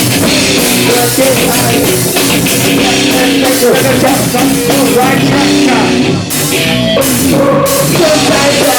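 Rock band playing loud live, with drum kit and guitar; the cymbals thin out briefly about six seconds in.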